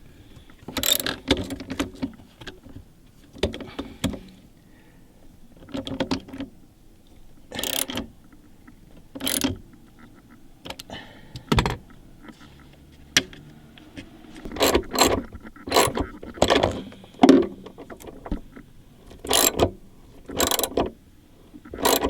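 Hand tools working on battery terminal clamps: ratchet clicks, metal clinks and several sharp knocks in scattered groups as both cable terminals are fitted and tightened.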